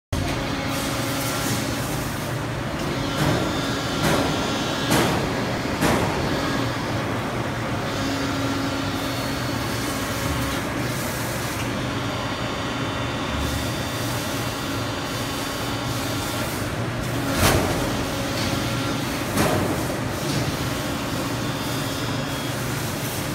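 PET preform injection moulding machine running a clamping test: its hydraulic pump hums and whines steadily while the toggle clamp moves. Sharp clunks come four times in quick succession a few seconds in and twice more later, as the clamp moves and locks.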